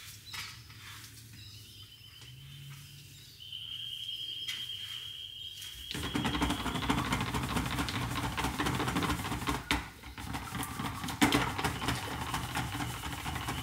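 Handheld stick blender running in a plastic jug of soap batter, starting about six seconds in with a steady motor whir and the churn of the batter. It is mixing the coloured soap batter toward trace.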